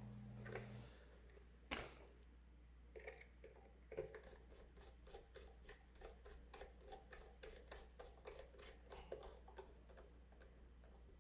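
Faint, rapid light clicking as screws are driven into the plastic lip plate of a toy ghost trap, at about four to five clicks a second. A low hum stops about a second in.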